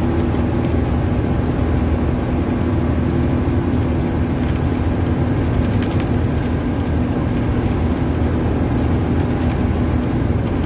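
Motorhome driving along a paved road: a steady engine drone with tyre and road noise, even throughout.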